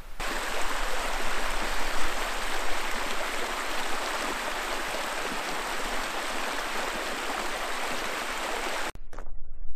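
A shallow, rocky creek rushing over stones in small rapids: a steady, even rush of water. It stops suddenly near the end, and a few short crackles follow.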